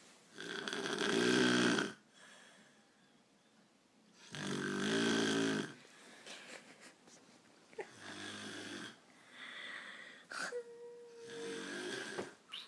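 An elderly woman snoring loudly in her sleep, a buzzing snore on each breath: two loud snores in the first six seconds, then three softer ones.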